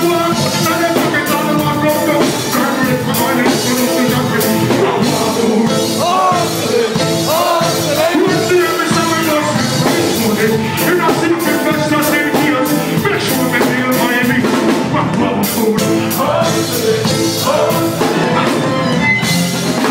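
Live reggae band music with a steady drum beat, and a voice singing over it in places.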